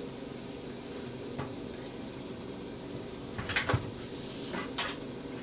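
Stacked bowls being slid out of a microwave and set down on a counter, giving a cluster of clunks and knocks a little past the middle and a couple more near the end, over a steady low hum.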